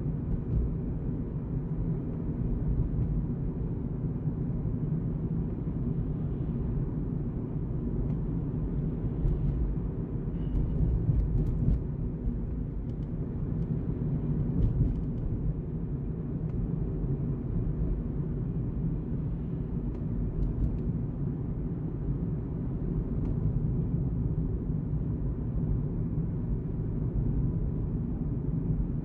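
A car driving at speed on a paved highway: a steady low rumble of tyre and engine noise, with a few faint clicks in the middle.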